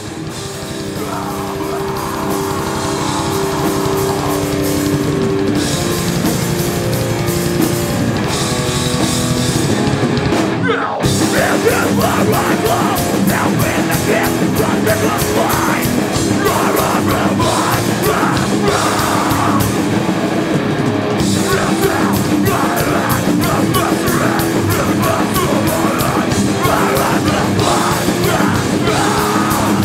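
Hardcore punk band playing live, heavy and loud. A slower intro of held, distorted guitar notes runs for about ten seconds, then the full band comes in hard about eleven seconds in: drums, distorted guitars and bass under shouted vocals.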